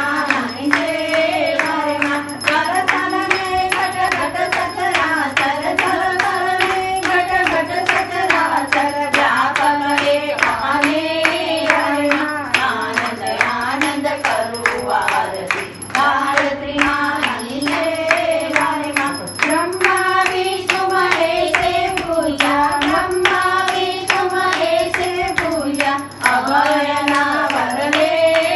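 Household group singing an aarti hymn, a repeating devotional melody, with hands clapping along in a steady beat.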